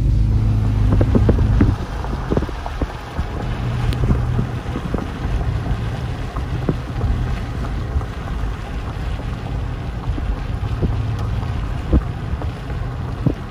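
A car rolling slowly on a wet road: low engine hum and the hiss of tyres on wet pavement, with wind noise on the microphone and scattered small ticks. The low hum is louder for about the first two seconds, then drops.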